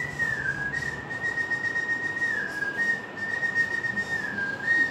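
A man whistling one steady high note that dips briefly lower a few times, over the faint scratch and tap of a marker on a whiteboard.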